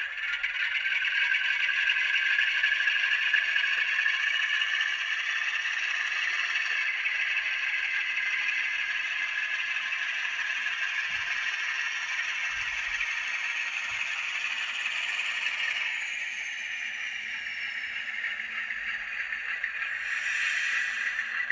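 Sound decoder in an N gauge Graham Farish Class 47 model playing a Class 47 diesel engine sound through twin tiny sugar-cube speakers. The engine note runs steadily and sounds thin, with no bass. A faint high whine slides down in pitch near the end.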